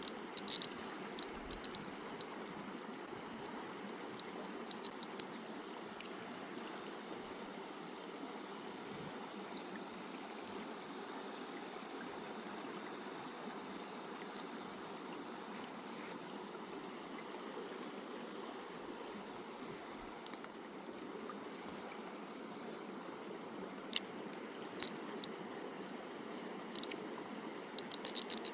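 Mountain stream water running steadily, with bursts of sharp clicking near the start, around five seconds in, and through the last few seconds.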